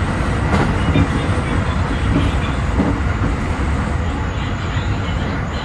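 JR 223 series electric train running at high speed, heard from the cab: a steady rumble of wheels on rail. An oncoming container freight train is rushing past close alongside for the first seconds, with a few knocks in the first three seconds.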